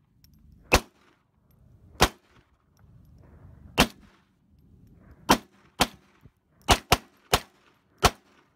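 .22 calibre target pistol firing nine sharp single shots. They come slowly at first, about a second or more apart, then faster, with a quick group of shots near the end.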